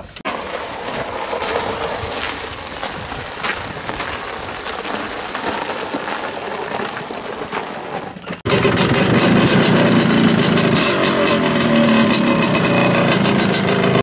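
A steady noise for about eight seconds, then suddenly a much louder engine sound with rapid, even popping: the 1987 Suzuki LT500R Quadzilla's 500cc two-stroke engine running.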